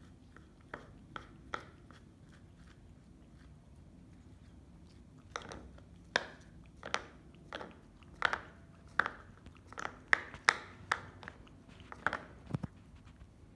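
Cat chewing and smacking on canned sausage, a run of sharp wet clicks: three near the start, then one or two a second from about five seconds in.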